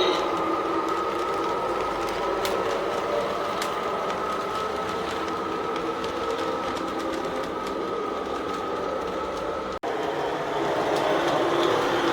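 Lionel LionChief+ 2 Pennsylvania GG1 model locomotive running steadily on its track: motor and wheel rumble with a constant whine. The sound breaks off for an instant about ten seconds in.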